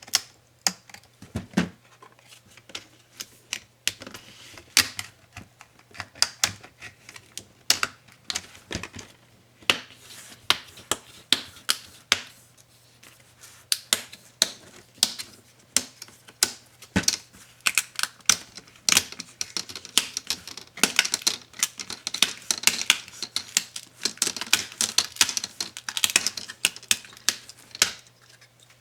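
Irregular sharp clicks and taps of small tools and plastic and metal parts of an ASUS ROG Strix GL503VM laptop being handled and pried apart during disassembly, coming more thickly in the second half. A faint steady low hum runs underneath.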